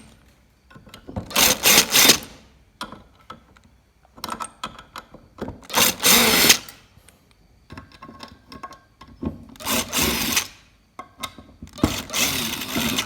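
A handheld power tool run in four short bursts of about a second each, with pauses and light knocks between them.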